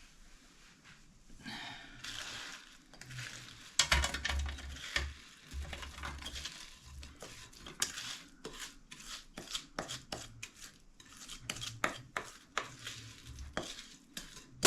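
A spoon scraping and knocking against a bowl as a sticky chocolate, biscuit and Rice Krispie mixture is scooped out and spread into a lined tin: irregular clinks and scrapes, with a louder knock about four seconds in.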